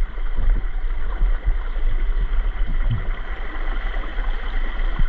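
Steady rush of running creek water, with a heavy low rumble of wind or handling buffeting the camera's microphone and a few soft low thumps.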